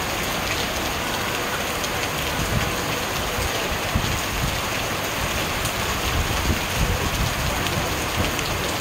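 Heavy rain pouring steadily onto parked cars and the street.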